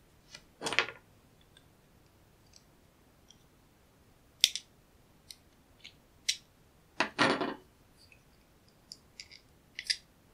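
Blue plastic vape shell being pried and broken open with a small precision screwdriver: scattered sharp plastic clicks and snaps, with two longer scraping, cracking noises, about a second in and about seven seconds in.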